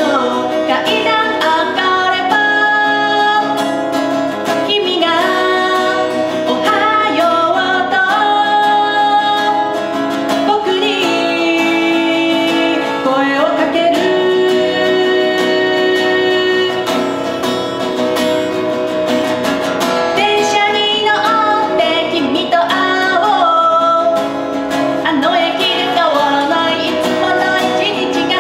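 A woman singing live to her own acoustic guitar accompaniment.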